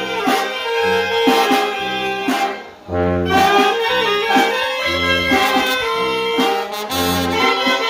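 Mexican brass band (banda) playing: saxophones and brass carry the melody over a low bass line that lands about once a second. The music breaks off briefly near the middle and then comes back in.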